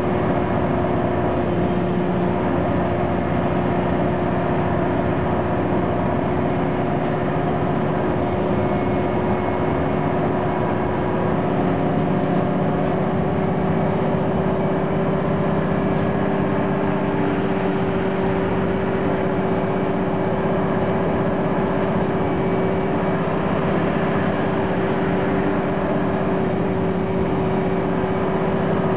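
Interior of an Orion V diesel transit bus (Cummins ISM engine, Voith D863.3E automatic transmission) running steadily on the road: a constant engine drone with a steady whine over road noise.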